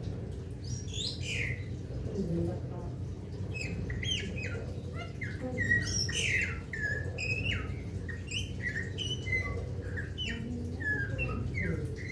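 Golden myna calling in a rapid series of short whistles and squawks, many sliding downward in pitch, coming thick and fast from about four seconds in.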